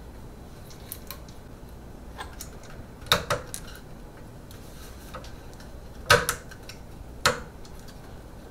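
Sharp plastic clicks and knocks as the extruder unit's plastic housing is worked by hand back into the 3D printer's toolhead: a double click about three seconds in, another about six seconds in and a single one about a second later, with fainter ticks between.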